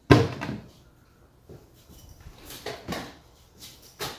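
A single loud thump as a cordless oscillating multi-tool is set down on a drawer bottom, followed by a few softer knocks and shuffling steps. The multi-tool is not running.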